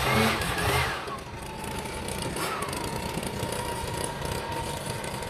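Small engine of a backpack garden power unit running at speed, then dropping to a steady idle about a second in, with one brief blip of throttle partway through.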